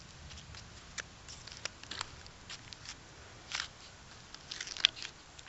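Toy wagon with a wire pet cage rolling over cracked asphalt, giving scattered light clicks and rattles at irregular intervals, the sharpest click near the end.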